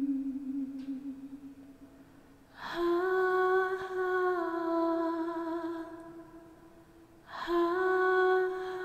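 A woman humming a slow, solemn tune in long held notes. One note fades away at the start, a new one swells in just under three seconds in, steps up briefly and fades, and another begins near the end.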